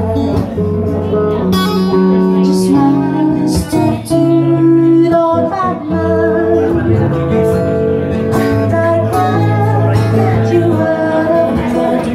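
Live acoustic-and-electric guitar duo strumming and picking chords while a woman sings the melody into a microphone.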